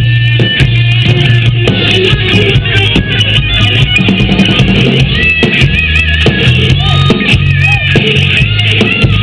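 Rock music with guitar, bass and drums.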